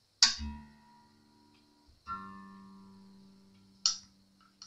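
Steinberger Spirit headless guitar strings plucked twice, each note ringing and fading away, checked while its tuning machines are turned. A sharp click follows near the end.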